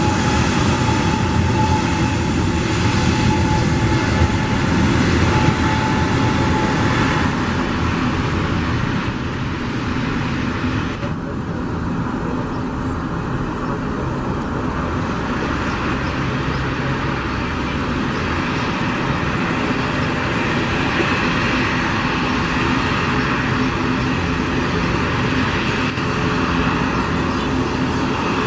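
Airbus A320neo jet engines at takeoff power during the takeoff, a loud steady noise with deep rumble and hiss. The hiss briefly thins about a third of the way through.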